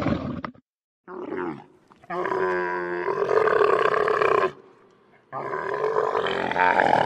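Dromedary camels calling: a short call about a second in, then two long, throaty calls of about two and a half seconds each, with short pauses between.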